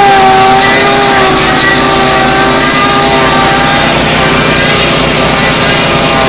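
Log lathe's knife cutter head rounding a cedar log, stripping bark and throwing chips: a loud, steady mechanical din, with a constant hum from the machinery over a dense cutting hiss.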